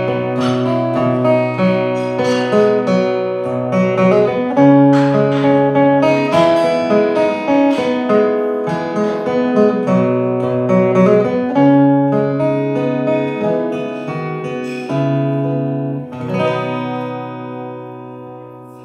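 Steel-string acoustic guitar picked solo, playing the slow instrumental close of a Celtic traditional air. The last chord is left to ring and fades out near the end.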